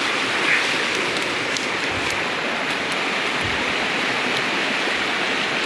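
Steady rain falling on the woodland leaves and undergrowth, an even hiss with a few faint drop ticks.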